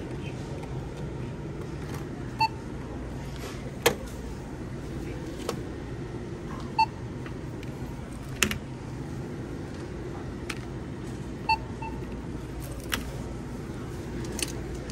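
Steady low background hum with short, single-pitched electronic beeps at irregular intervals and a few sharp clicks.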